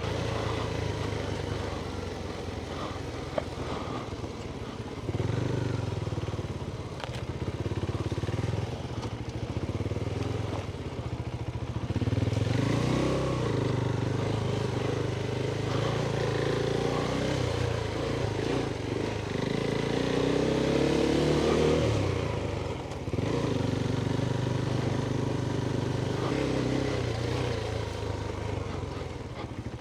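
Adventure motorcycle engine pulling at low speed on rough ground, the throttle opening and closing so the engine note rises and falls. It is louder for about ten seconds in the middle.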